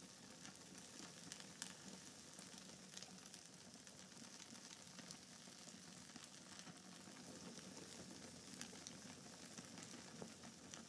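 Very faint crackling of a wood campfire: scattered small pops and snaps over a steady soft hiss.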